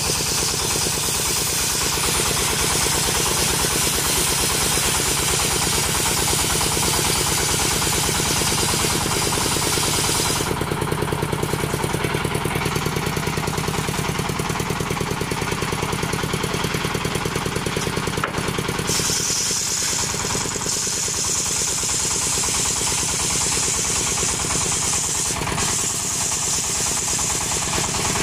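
Two-stroke chainsaw running continuously while ripping coconut wood lengthwise. Its tone shifts about ten seconds in and again near twenty seconds as the load changes.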